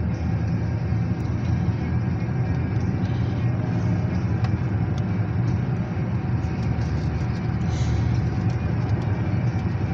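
Car on the road heard from inside the cabin: a steady low rumble of engine and road noise.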